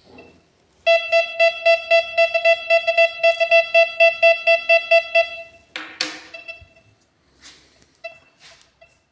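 Neo Plus+ 24 kHz VLF metal detector's speaker giving a rapid pulsing beep, about five beeps a second, as a coin is passed over the search coil: its signal for a detected metal target. A knock follows about six seconds in, then a few short beeps near the end.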